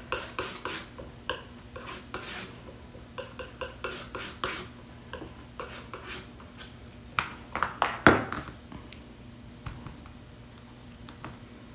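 Palette knife tapping and scraping on a paper palette while oil paint is mixed, here ultramarine worked with white into a light blue. Quick taps and scrapes come through the first half, with a louder scrape about eight seconds in.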